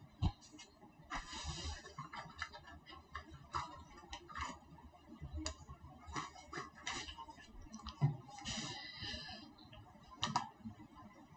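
Scattered clicks and taps of a laptop keyboard and mouse being worked, with two brief rustles, one about a second in and one near the end.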